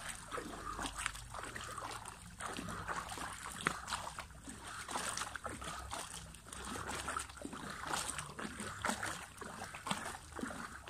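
Pool water splashing and sloshing as forearms are bent and straightened quickly at the surface, a run of many short, irregular splashes.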